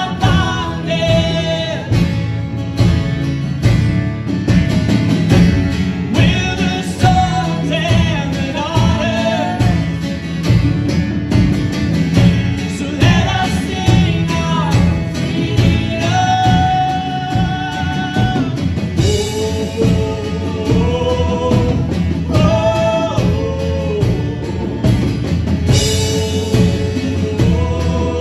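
Live worship band playing a song: a man singing the melody over strummed acoustic guitar, with women's voices joining, backed by drums and keyboard.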